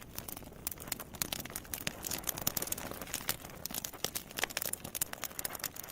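Fire crackling: dense, irregular pops and snaps, like a burning bonfire.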